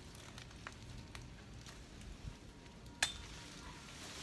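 Light crackling and rustling of leaves and twigs being handled, with scattered small clicks and one sharp click about three seconds in.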